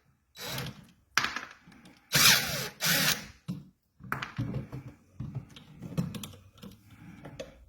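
Hand tool and metal parts working on an electrical outlet: a screwdriver loosening the terminal screws and the stiff wires being worked off. There are four short scraping rasps in the first few seconds, then lighter clicks and taps.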